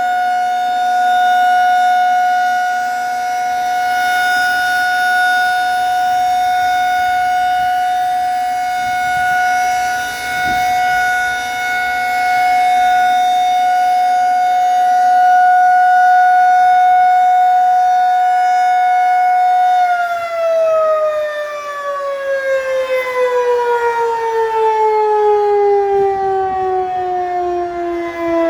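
Outdoor civil defense warning siren sounding a steady alert tone, then winding down with a long falling pitch from about two-thirds of the way in, the end of its 1-minute test alert.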